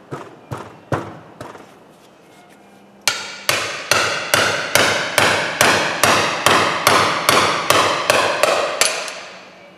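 Hammer blows on a metal drift set in the bore of a Ford Transit front wheel hub, knocking out the old wheel bearing. A few blows, a short pause, then a steady run of about three blows a second until near the end, each ringing briefly.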